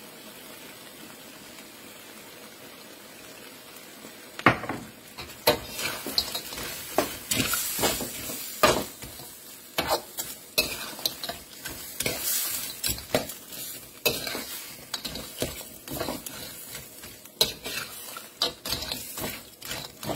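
Crab pieces sizzling in a wok; from about four and a half seconds in, a metal spatula scrapes and knocks against the wok again and again as the crab is stir-fried in its sauce.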